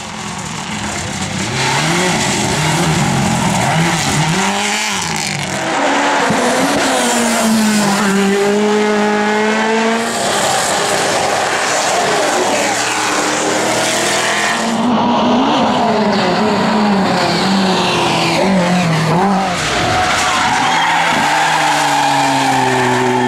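Rally car engine driven hard, its pitch climbing and dropping again and again with throttle and gear changes, over heavy tyre noise. Near the end the engine note falls away.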